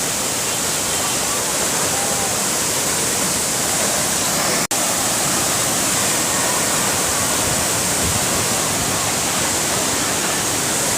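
Heavy waterfall, about 50 m high, pouring down in a loud, steady, dense rush of water. The sound cuts out for an instant a little under five seconds in.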